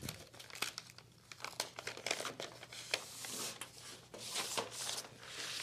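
Brown-paper package being torn open and a metal kick plate slid out of it: crinkling and tearing paper with short rustles and small clicks.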